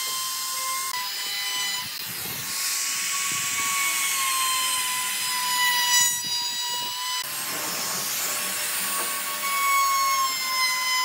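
Compact trim router running at speed while routing the edge of a wooden ring, a high motor whine with cutting hiss, its pitch wavering slightly as the bit bites into the wood.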